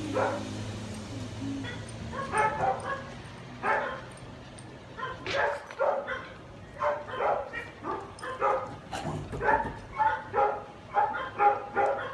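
Dog barking and yipping in short, quick bursts, many in a row.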